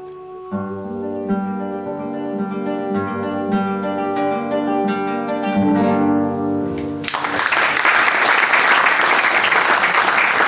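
Classical guitar playing the closing bars of a song, a run of quickly picked notes over low bass notes. About seven seconds in, audience applause breaks out and continues, louder than the guitar.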